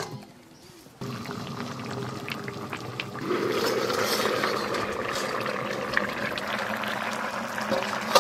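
Curry simmering in a karahi under an upturned steel plate over a wood fire: a steady bubbling that grows louder about three seconds in, with a sharp clink near the end as the plate is lifted off.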